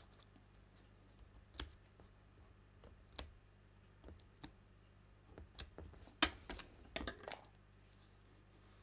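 Scattered soft clicks and taps of hands handling paper pieces and craft tools on a craft mat, more frequent in the second half.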